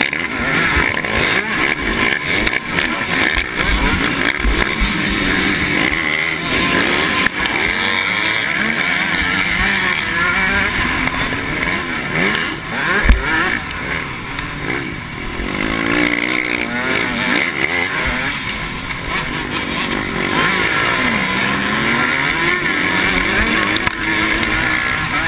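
KTM 105 XC two-stroke motocross engine racing hard, its pitch rising and falling as the rider revs and shifts, with other dirt bikes around it. A single sharp thump about halfway through.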